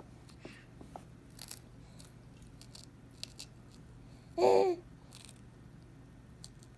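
A baby gives one short babbling squeal about four and a half seconds in, the loudest sound. Around it are faint crunching and mouth clicks as she bites and gums a Gerber Lil' Crunchies corn snack.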